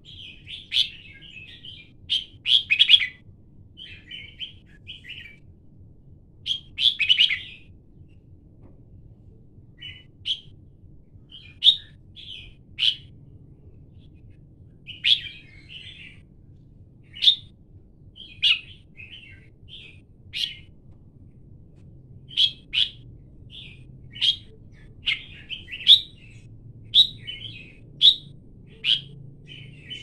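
Red-whiskered bulbul singing: short, bright chirping phrases repeated every second or two, with a few brief pauses.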